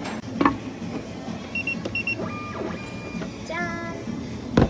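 Two sharp knocks from a paper ice-cream pint container being handled at the counter, one about half a second in and a louder one near the end. In between come short paired electronic beeps and a few steady tones.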